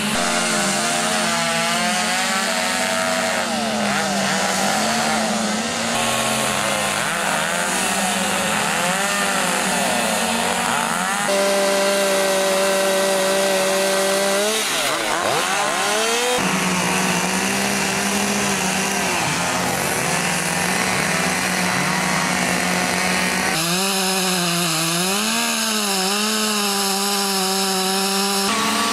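Two-stroke chainsaws running at high revs and carving into wood, the engine note dipping and recovering as the chain bites. The sound changes abruptly about four times as one cut gives way to the next.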